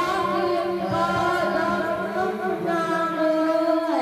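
A slow live melody of long held notes, more than one pitch sounding at once, gliding down near the end.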